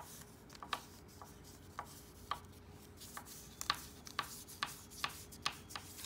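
A dark blue drawing crayon making quick short strokes on paper: faint, irregular scratches and taps, about two a second.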